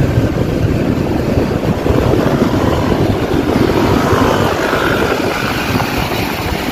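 Steady rush of wind and engine noise from a motor scooter on the move, heard from the rider's handlebars, the wind buffeting the microphone.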